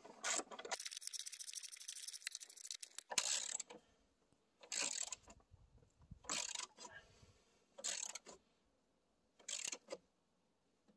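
Ratchet wrench clicking as it tightens the battery hold-down bracket bolt: a fast run of clicks for about two seconds, then five short bursts of clicks, one every second and a half or so, on each back-swing of the handle.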